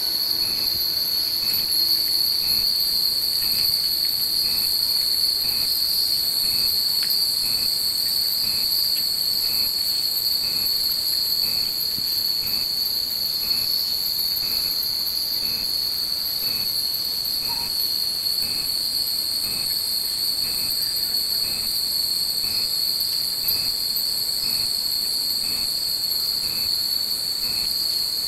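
Hundreds of hanging wind chimes (furin) ringing together in a continuous high shimmer, with a faint short tick repeating about every two-thirds of a second.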